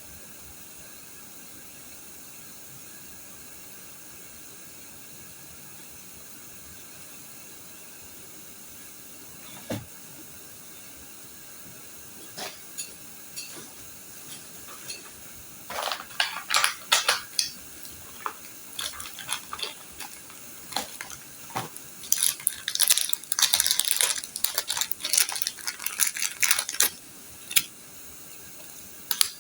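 Hard objects clicking and clattering as they are handled, sparse at first and then rapid and dense through the second half, over a steady hiss.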